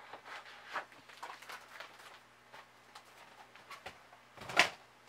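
Faint rustling and small clicks of a hardcover picture book being handled and set down, with one louder short thump near the end.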